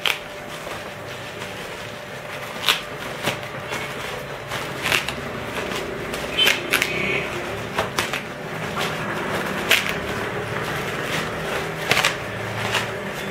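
Bubble wrap being handled and pulled off a boxed hard drive: irregular crinkling and sharp crackles of plastic over a steady low hum.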